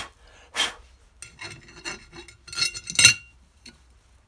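Metal starter ring gear being handled on a Briggs & Stratton flywheel: two short scrapes, then a run of metallic clinks and rubbing with brief ringing as the ring is seated, the loudest clank about three seconds in.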